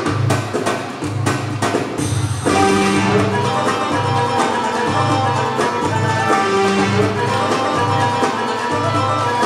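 Belly dance music with a low drum beat pulsing about every half second. It opens on busy hand-drum strikes, and about two and a half seconds in a melodic instrument comes in with held notes over the beat.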